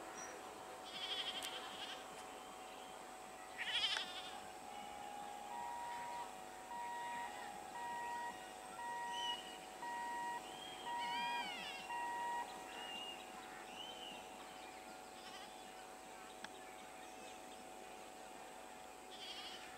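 Quiet railway station ambience with an EMU local train standing at the platform: a steady faint hum, a run of about seven short even beeps, one a second, and a few animal calls about eleven seconds in.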